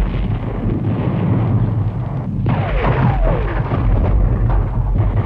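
Artillery bombardment: a continuous rumble of guns firing and shells bursting, with several shells whistling down in pitch about halfway through.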